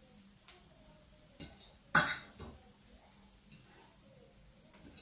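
A fork clinks and knocks against a frying pan and plate as fried syrniki are lifted out of the pan. There are a few light clicks and one much louder knock about two seconds in.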